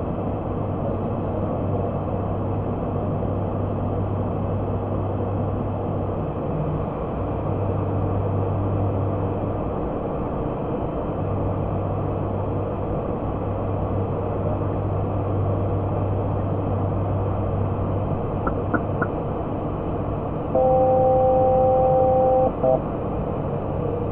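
Steady cockpit drone of an ATR 72-600's PW127M turboprops and propellers on approach, heard from inside the flight deck. Near the end a few faint clicks, then a loud steady two-note alert tone sounds for about two seconds and cuts off.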